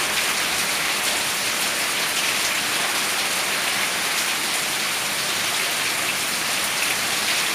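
Steady rain falling, with water pouring in streams off the edge of a corrugated roof.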